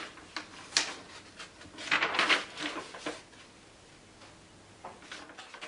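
Paper rustling and crinkling as a paper flap on a poster board is lifted and held open, with a few light taps; the loudest rustling comes about two seconds in.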